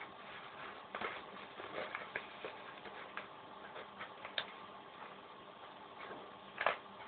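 Sheet of paper being handled and folded: scattered, irregular crinkles and creasing clicks, the loudest a little before the end.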